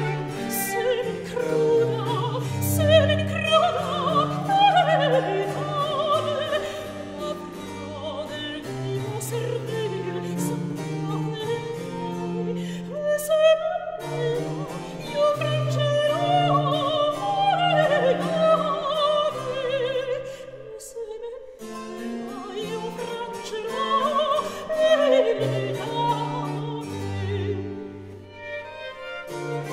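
Background classical music in operatic style: a melody with strong vibrato over low sustained notes, with a brief drop about two-thirds of the way through.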